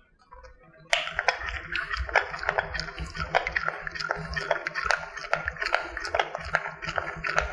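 A microwave oven switched on about a second in and running, heating a bowl of white chocolate chips and heavy cream to melt them in a short timed burst.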